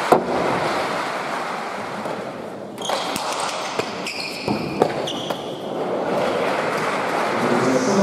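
Hand-pelota ball cracking off players' hands and the trinquet walls in a rally, several sharp hits a second or so apart in the middle, with short high squeaks of shoes on the court floor. Crowd noise fills the hall at the start, drops about three seconds in, and rises again near the end.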